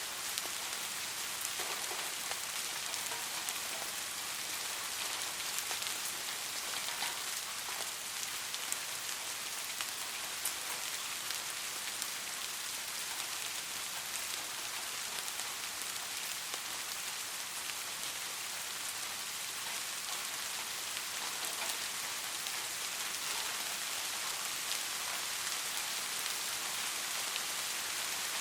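Steady light rain falling, an even hiss with many small scattered drop taps.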